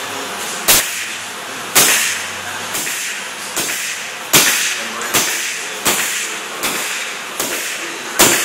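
Pneumatic nail gun driving nails through a thin plywood sheet into a wooden frame, firing about nine times at intervals of a second or less. Each shot is a sharp crack followed by a short hiss.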